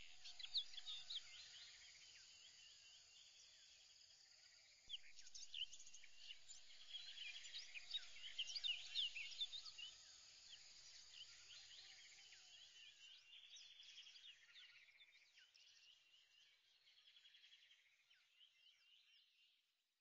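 Faint chorus of many birds chirping and trilling, busiest a few seconds in and dying away near the end.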